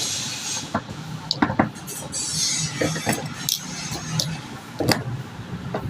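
Scattered light clicks and clinks of small tools and metal parts being handled, irregular taps over a faint low hum.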